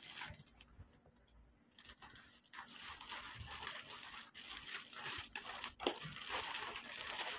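Plastic courier mailer bag crinkling as it is cut open with scissors. It is quiet at first, then from about two and a half seconds in there is continuous rustling with several sharp snips.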